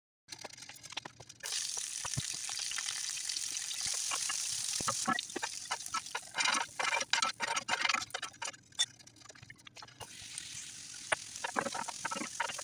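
Soft taps of onion slices being pulled apart on a wooden cutting board. Then sliced onion and diced red bell pepper sizzle steadily in a cast iron skillet, with metal tongs clacking and scraping against the pan through the middle. Near the end, diced mushrooms sizzle in the skillet as they are stirred.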